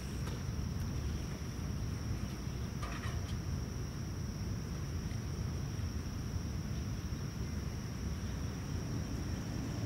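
Insects droning in one steady high-pitched note, over a low, even rumble.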